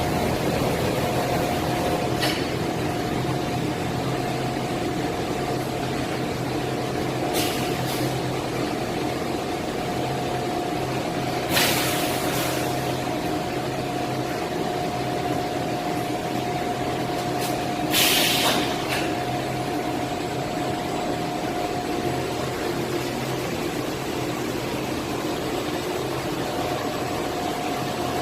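Automated pipe laser cutting machine running with a steady hum and a constant whine. A few faint clicks are heard, and two short hissing blasts come about 11 and 18 seconds in.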